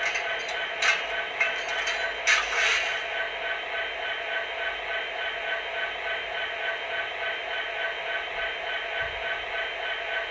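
Sound system of an MTH HO-scale SD70ACE model locomotive playing a diesel idle through its small onboard speaker: a steady hum with an even rhythmic pulse. Two short hisses come about one and two seconds in.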